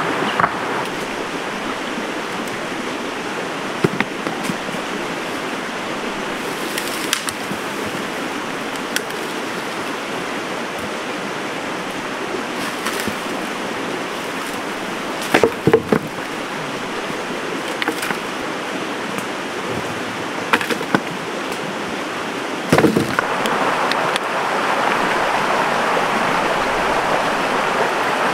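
Stream rushing steadily over rocks, with a few brief sharp sounds on top of it, the loudest about halfway through and again near the end.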